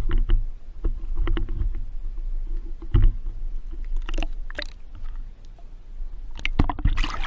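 Pond water splashing and sloshing close to the microphone, in short irregular bursts, over a steady wind rumble.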